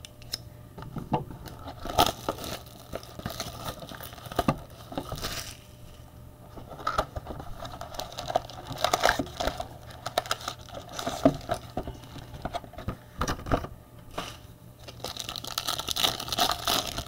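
Foil wrapper of a trading card pack being torn open and crinkled, with irregular crackles and clicks as the cards are handled. The crinkling is densest near the end.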